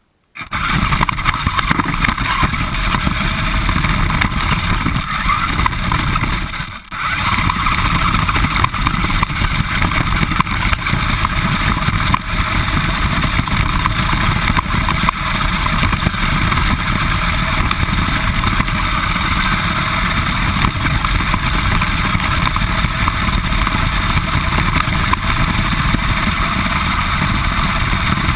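RC car's motor and drivetrain running continuously, picked up close by a camera mounted on the car, with road and tyre noise. The sound briefly dips about seven seconds in.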